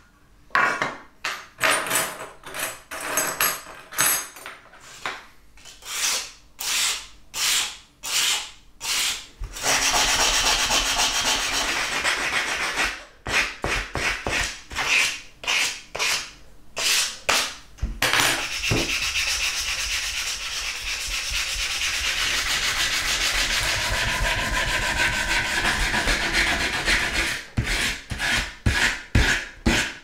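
Hand sanding of metal pocket knife parts with sandpaper: back-and-forth scraping strokes, about one or two a second, broken by long stretches of steady, unbroken rubbing, with quicker strokes near the end.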